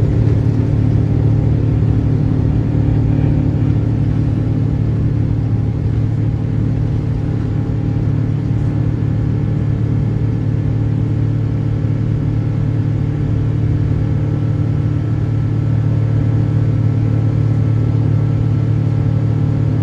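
Boeing 777-300ER's GE90 turbofan engines running at full takeoff power: a loud, steady rumble with a low, even drone.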